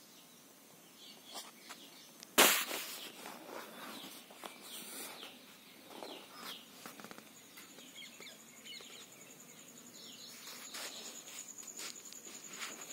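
Small birds chirping in short calls, and from about halfway through an insect trilling steadily at a high pitch with a fast even pulse. A single sharp knock about two and a half seconds in is the loudest sound.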